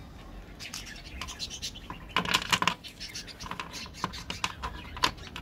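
Squares of Cadbury Dairy Milk chocolate being handled and set down on a tabletop: a run of small clicks and taps, densest about two seconds in.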